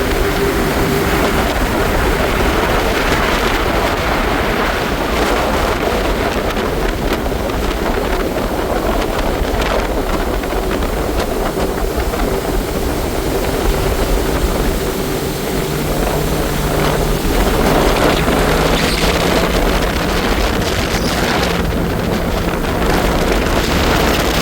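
Jet ski running at speed over water: a steady engine note under heavy wind buffeting the microphone, with water splashing and spraying.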